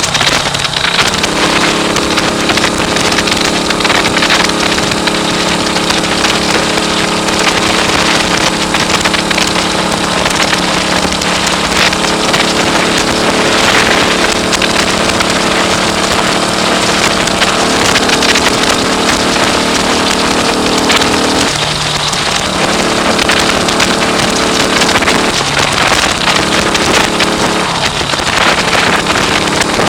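A 1939 AJS Model 22 250 cc single-cylinder engine, fitted with an Ariel 250 cylinder head, running steadily under way on the road, with heavy wind noise on the microphone. The engine note breaks briefly and changes pitch near the start and about three times in the last third.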